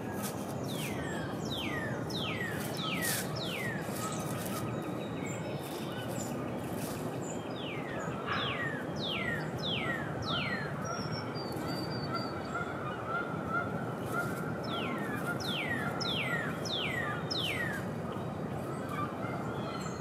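A bird singing runs of about five clear whistled notes, each sliding down in pitch, three times over, with steady background noise throughout.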